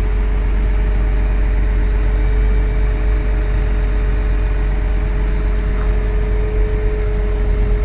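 Diesel engine of a truck-mounted concrete pump running steadily, with a steady low rumble and a thin steady whine over it; a second faint tone joins about three seconds in.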